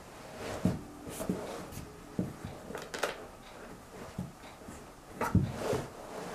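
Rubber wellington boots shifting and stepping on a tiled floor: irregular soft thumps with rubbing and creaking of rubber, the louder steps about three seconds in and again near the end, echoing in a small tiled room.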